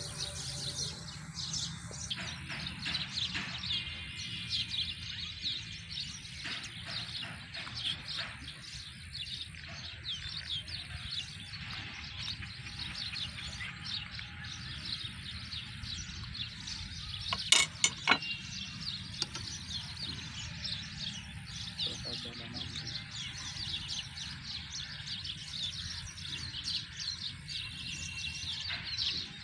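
Many small birds chirping busily over a steady low hum. Two sharp clicks a little past halfway through.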